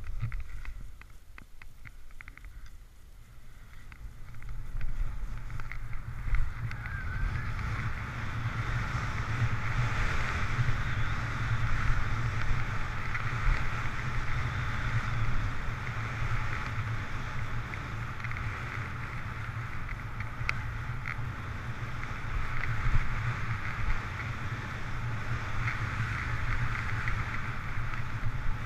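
Skis hissing and scraping over snow on a downhill run, with wind rumbling on the microphone. Quieter for the first few seconds, then louder and steady as the speed builds.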